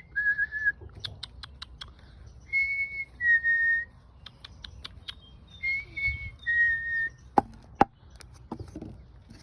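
A person whistling a two-note call to the garden birds, a higher note dropping to a lower one, three times over. Between the calls come thin clicks, and two sharper knocks near the end.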